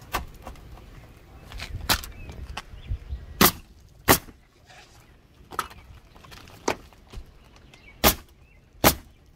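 Pneumatic coil roofing nailer firing nails through skylight metal flashing into the roof deck, about seven sharp shots at irregular intervals, the loudest two pairs in the middle and near the end.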